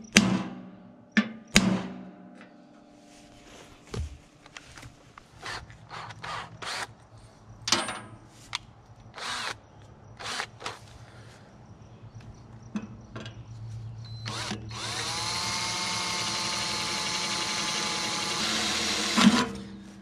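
Two sharp hammer blows on metal at the start, then scattered clicks and knocks. Near the end a cordless drill spins up and runs steadily for about five seconds, drilling a bolt hole through the sawmill's steel housing, then stops.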